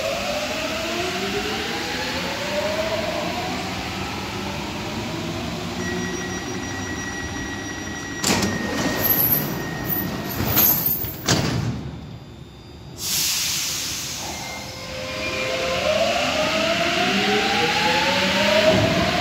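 Paris Métro MP14 rubber-tyred train at a station. A steady warning tone sounds, then the train doors and platform screen doors slide shut with loud clunks about halfway through. From about two-thirds in, the train pulls away with several rising traction-motor whines as it accelerates; similar rising whines are heard at the start.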